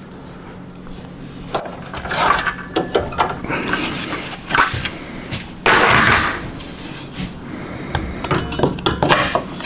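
Table saw blade guard and throat insert being handled and taken off: a series of irregular knocks, clunks and rattles of metal and plastic parts, with a short scraping rustle about six seconds in.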